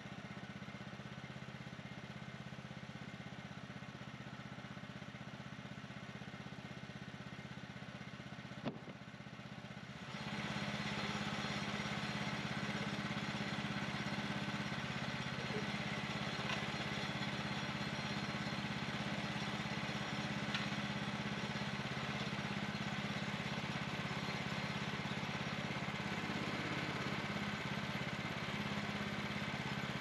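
Norwood LumberMate LM29 sawmill's gas engine running steadily. About ten seconds in there is a single sharp click, then the engine noise steps up louder and holds there.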